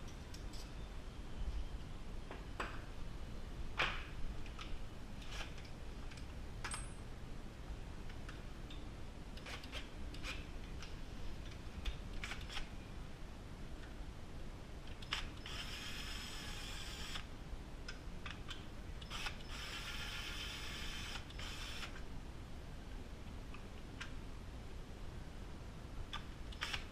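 A small power screwdriver whirring in short spells of a second or two as it backs out screws, among scattered clicks and knocks of tools and small parts being handled.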